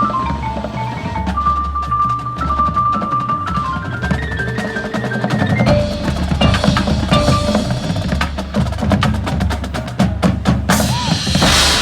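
Marching band drum line playing rapid snare and bass drum patterns under a stepping melody line, building to a loud crash near the end.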